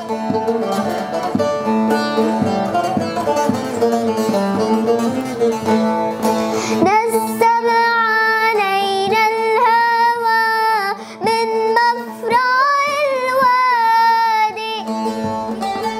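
A young girl singing to a buzuq, a long-necked Levantine lute, plucked and strummed beside her. The strings play alone at first; her voice comes in clearly about seven seconds in and carries the melody with vibrato over the lute.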